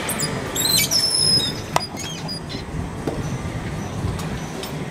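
Batting cage's metal-framed door squealing, with high, wavering metal scrapes for about a second and a half, then a single sharp knock. A steady background noise follows.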